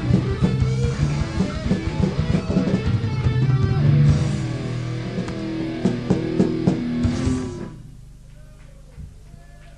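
Punk rock band playing live with distorted electric guitar, bass guitar and drum kit, the song ending about three-quarters of the way through. After the last chord dies away only a faint steady hum remains.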